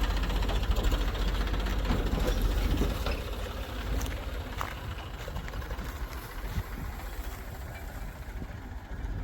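Diesel engine of heavy machinery running, a low, fast-pulsing rumble that eases off about three seconds in and carries on more quietly.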